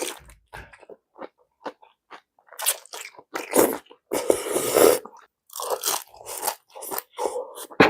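Close-miked chewing of a mouthful of crispy fried rice-vermicelli noodles (mee krob) in gravy with marinated pork, crunching in irregular bites.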